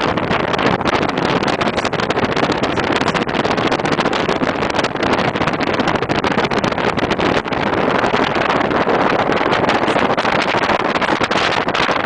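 Strong wind buffeting a camcorder microphone: a loud, continuous rushing noise that flutters rapidly in level.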